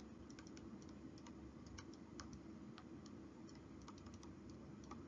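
Faint, irregular light clicks and ticks of a stylus tapping and sliding on a tablet screen while handwriting, over a low, steady room hum.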